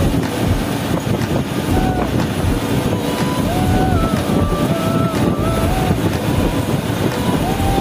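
Steady, loud drone of a coach's engine and tyres heard from inside the front cabin at highway speed. Faint wavering tones that step up and down in pitch sit over it.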